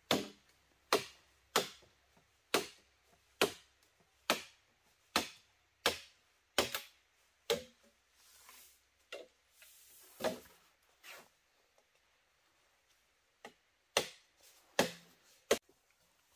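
A blade chopping into wood: a steady run of sharp blows, a little more than one a second, that turn sparser and pause partway through, then start again near the end.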